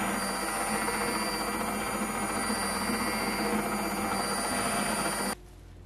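Handheld immersion blender running steadily with its blade held still in chocolate glaze, blending out lumps; the motor cuts off abruptly about five seconds in.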